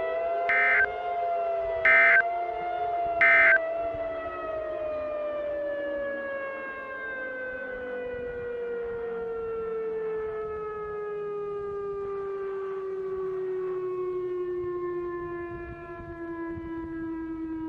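Civil defense siren sounding and slowly winding down, its pitch falling steadily. In the first few seconds, three short, loud data bursts of the Emergency Alert System end-of-message code sound over it, about a second and a half apart.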